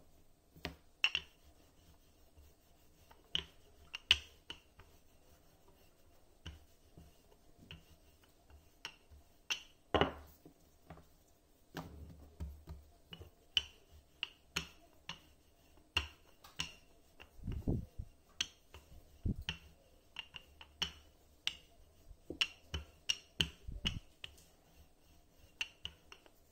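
Wooden rolling pin rolling out flatbread dough on a wooden board: many short clicks and taps as the pin knocks and rolls against the board, with a few dull thumps in the second half.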